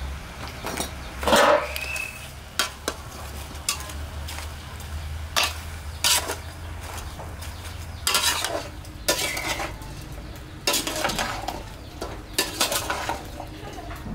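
A metal spatula scrapes and knocks against a large metal cooking pot as raw goose meat is tossed with lemongrass, garlic, shallots and salt. The clatter comes in irregular bursts, the loudest about a second and a half in.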